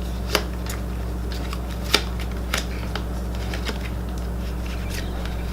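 Exploding Kittens playing cards being handled: light, irregular card clicks and snaps, a few sharper than the rest, over a steady low hum.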